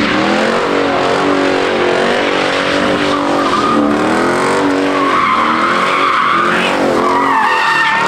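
Doorless Dodge Charger spinning donuts: its engine revs rise and fall over and over while the rear tyres squeal and screech. The squeal is loudest from about five seconds in and again near the end.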